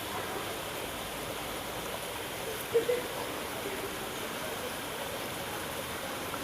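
Steady rush of running water at a swimming pool, with a brief louder sound just under three seconds in.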